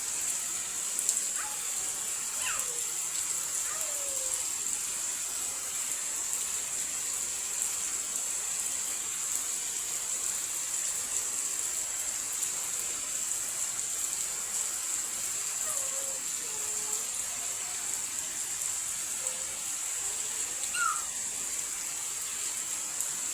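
Steady rain falling, an even hiss with a strong high edge, with a few faint short calls scattered through it.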